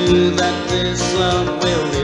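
Instrumental break of a country song: a slide guitar lead with gliding notes over guitar and bass.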